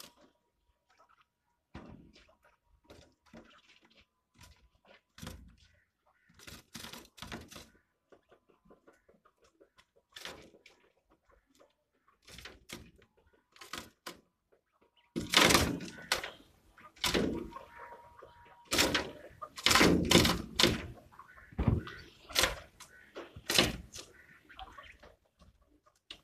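Quail pecking at a locust on a wooden floor: a series of sharp beak taps, sparse and light at first, then louder and more frequent from about halfway through.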